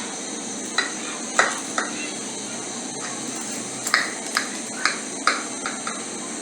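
A utensil knocking and tapping against the frying pan about nine times, in two clusters, as the cooked cabbage pizza is cut into pieces, over a steady background hiss.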